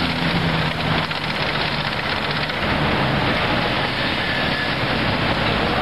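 Heavy city street traffic: cars and motor scooters driving round a roundabout in a continuous loud din of engines and tyres. A low engine hum from a nearby car fades about a second in.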